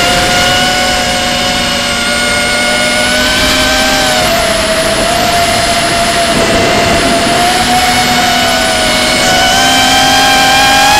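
Eachine Wizard X220 racing quadcopter's brushless motors and propellers whining in flight, heard from its onboard camera: several close, high-pitched tones that shift with the throttle, dipping about four seconds in and climbing again near the end, over a steady rush of air noise.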